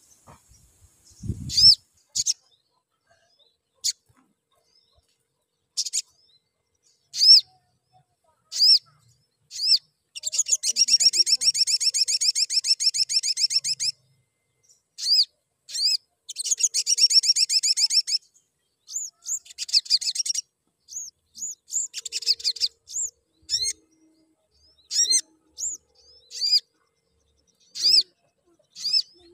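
Male olive-backed sunbird calling: sharp, high single chirps every second or two, broken by fast rattling trills, a long one of about four seconds and another of about two. There is a soft low thump about a second and a half in.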